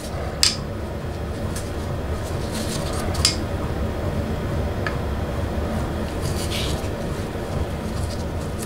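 Light metallic clicks and clinks of small chainsaw engine parts being handled and pulled apart by hand, with two sharper clicks about half a second and three seconds in, over a steady low hum.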